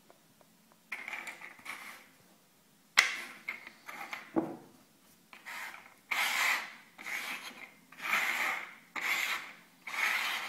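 Three small domed pieces shuffled by hand across a wooden tabletop, sliding and scraping in a run of short rubbing strokes. A sharp tap comes about three seconds in.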